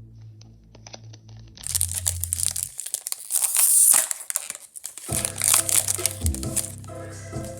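Foil Pokémon booster pack wrapper being torn open and crinkled, a loud crackling from about a second and a half in until around five seconds, over background music.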